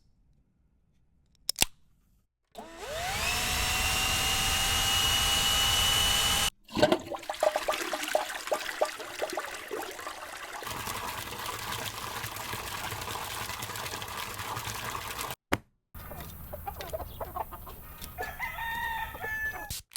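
A run of separate field recordings cut one after another. First a whine rises in pitch and then holds steady for about four seconds. It stops abruptly and gives way to a long stretch of clattering noise, then, after a short break, a noisy stretch with a few short pitched calls near the end.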